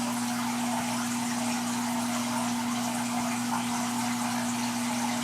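Saltwater reef aquarium running: steady trickling and splashing of circulating water, with a steady low hum from the tank's pumps.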